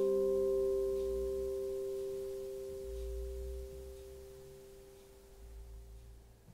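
Last strummed chord on an acoustic guitar ringing out and slowly dying away.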